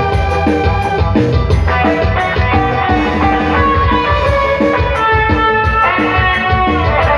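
Dangdut band playing an instrumental passage without vocals: a plucked guitar melody over bass and drums with a steady beat.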